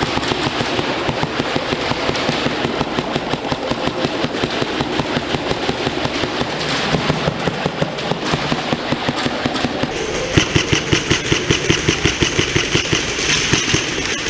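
Electric airsoft guns firing long rapid bursts in a speedsoft match, a fast mechanical rattle that gets louder and more distinct about ten seconds in.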